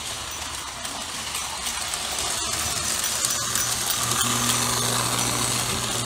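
1954 Lionel toy electric train running on three-rail track, its locomotive's motor whirring and its wheels clattering, growing louder as it comes closer. A steady low hum joins in a little past halfway.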